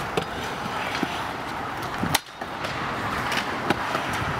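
Kick scooter wheels rolling over skatepark concrete: a steady rumble with scattered clacks, and one sharp click about two seconds in followed by a momentary drop in sound.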